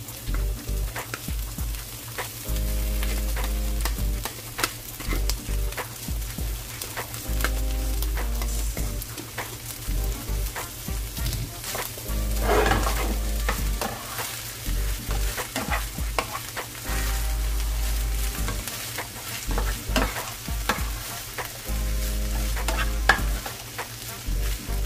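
Fried rice being stirred and tossed in a hot pan: steady sizzling, with a utensil scraping and clacking against the pan many times over.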